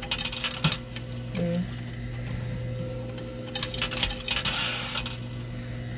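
Quarters clinking and clattering in a coin pusher arcade machine: a few sharp clinks in the first second and a longer clatter of coins about midway through, over a steady hum.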